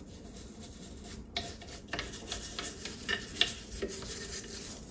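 Toothbrush scrubbing the crevices of a Singer 301's cast aluminium body, wet with degreaser, in short, irregular bristle strokes.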